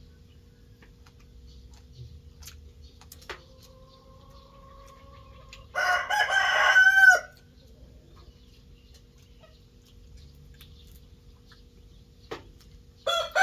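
A rooster crows once, loud and lasting just over a second with a falling end, about six seconds in, and starts to crow again near the end.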